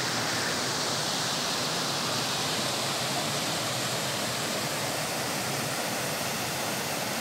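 Steady rush of a rocky mountain stream tumbling over small cascades and boulders.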